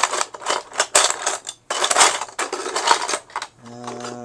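Loose plastic Lego pieces clattering and rattling as hands rummage through a bin of bricks. Near the end comes a brief, low, steady hum.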